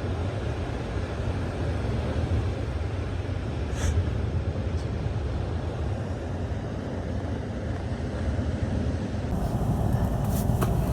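Steady low rumble of road and engine noise inside a moving car's cabin, with a few faint clicks near the end.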